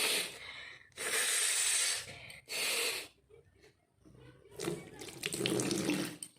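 Water running and splashing into a bathroom basin in several separate bursts, the last one longer, lasting nearly two seconds.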